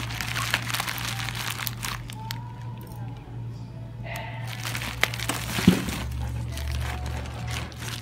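Plastic bubble wrap crinkling and crackling irregularly as a book wrapped in it is handled and pulled out of a cardboard box, over a steady low hum, with one louder knock a little past halfway.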